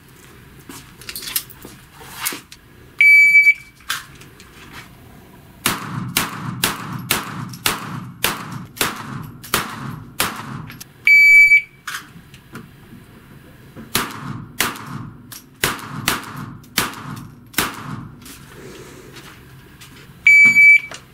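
Pistol fire at a barricade: two rapid strings of handgun shots, each about four seconds long. Three short, high electronic beeps from a handheld shot timer come about three seconds in, about eleven seconds in and near the end.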